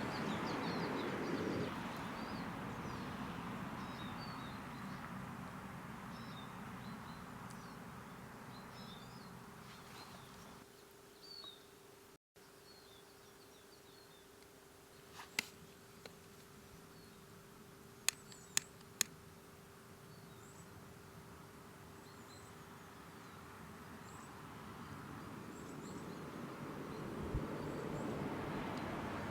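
Quiet outdoor ambience: a steady faint buzz like a bee or fly, short high bird chirps scattered throughout, and a few sharp clicks. A rushing noise at the start fades away over the first ten seconds, and a similar noise swells again near the end.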